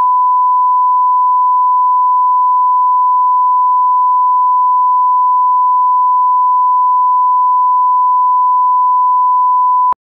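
Steady, loud pure test tone held at one pitch: the line-up reference tone that accompanies colour bars for setting audio levels. It cuts off suddenly near the end.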